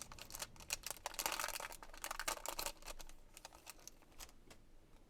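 A trading card pack being opened and its cards handled: crinkling wrapper and a quick run of small clicks and rustles that thins out after about three seconds.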